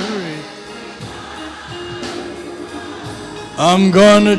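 Gospel hymn singing with heavy vibrato: a held sung note dies away at the start, a quieter stretch of soft musical accompaniment follows, and the singing comes back loud on a long held note near the end.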